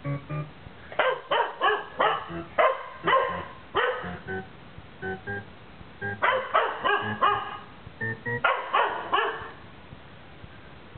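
Dog barking excitedly in two runs of rapid, sharp barks, set off by short electronic beeping tones played through a computer speaker. The beeps fall in the pauses between the runs.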